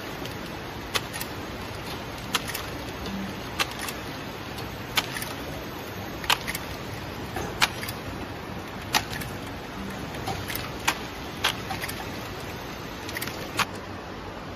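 Flow-wrap packing machine for cereal bars running, with a steady mechanical hum and a sharp click about every 1.3 seconds as each bar is wrapped and sent out.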